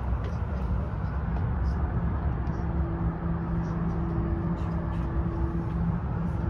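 Steady low rumble and hum inside the Portland Aerial Tram cabin as it runs along its cables. A second, higher hum joins for a few seconds midway.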